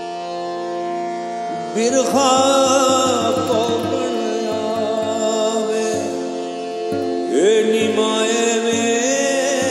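A man singing a slow Punjabi song over sustained accompaniment with guitar, his voice entering about two seconds in and again about seven seconds in with wavering, ornamented phrases. A soft low pulse sounds roughly once a second.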